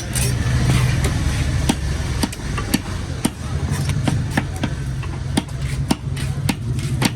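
A knife chopping fish on a cutting block: a string of sharp, irregular knocks, about three a second, over a steady low engine hum.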